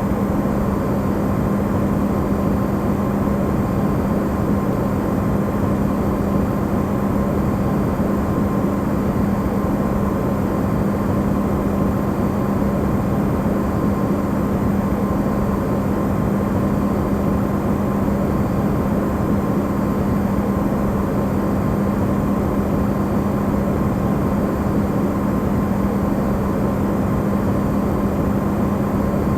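Amplified recording of an Electrolux refrigerator running: a steady low hum over an even rushing noise, unchanging throughout.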